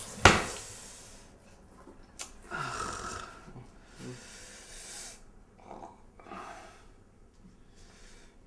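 A sharp knock about a quarter-second in, then a few short breathy hisses from a man who has just cut his finger.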